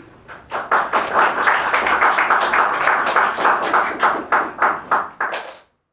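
Audience applause that starts about half a second in, thins to a few separate claps near the end and cuts off suddenly.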